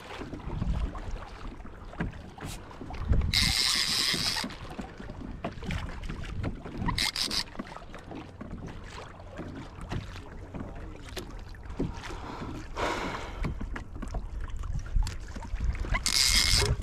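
Wind and water rumbling against a kayak, broken four times by short high buzzing bursts of fishing line pulling off a conventional reel's drag as a hooked fish runs.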